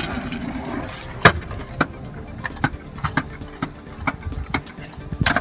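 Stunt scooter rolling over asphalt and concrete, its wheels humming and the deck rattling, with a series of sharp clacks as the scooter hits the ground during tricks; the loudest clack comes about a second in.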